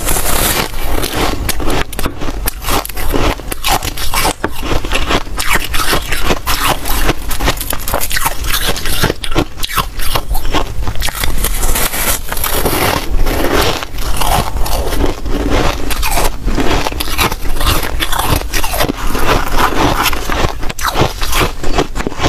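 Close crunching of snowy white freezer ice being bitten and chewed: a dense, continuous run of crackling crunches.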